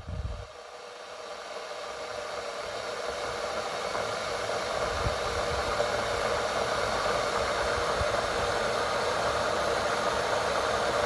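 Electric kettle heating water: a steady hiss that builds over the first few seconds and then holds steady, after a short thump at the start.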